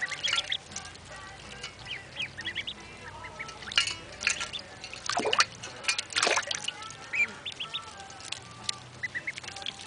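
Ducklings peeping in short, high calls over and over, with a few louder splashy noises around the middle as they dabble their bills in a water dish.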